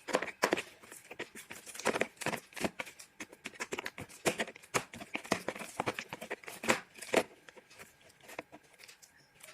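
Homemade glue-and-activator slime being stirred and worked by hand as it clumps, giving irregular sticky clicks, several a second, that thin out near the end.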